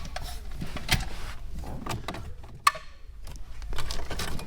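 Stereo wiring and connectors being handled under a car dash: scattered rustling and small plastic clicks, with two sharper clicks about one second and two and a half seconds in.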